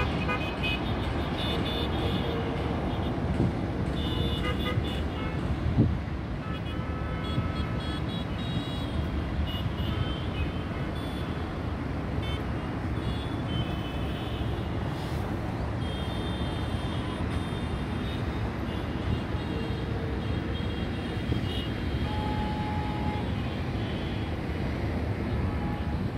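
Steady urban road traffic noise with many short vehicle horn toots scattered throughout, some overlapping.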